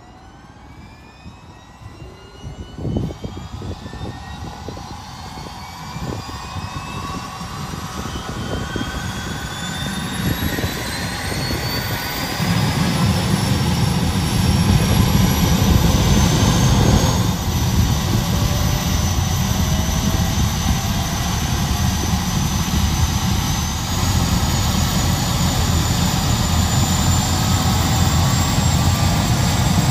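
Bell CH-146 Griffon helicopter starting up on the ground: the whine of its twin turboshaft engines rises steadily in pitch and grows louder as they spool up, and a heavy low rumble builds from about halfway as the rotor comes up to speed.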